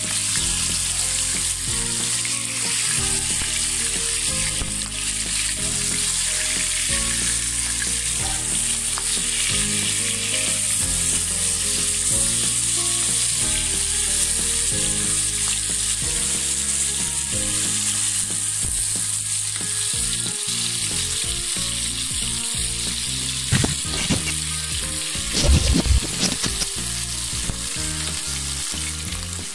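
Rohu fish steaks shallow-frying in hot oil, a steady sizzle, with a spatula stirring and turning the pieces in the pan. A few louder knocks and scrapes come near the end.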